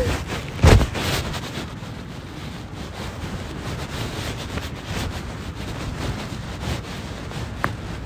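Wind buffeting an outdoor microphone in a steady rumbling hiss, with a sharp thump about a second in and a faint click near the end.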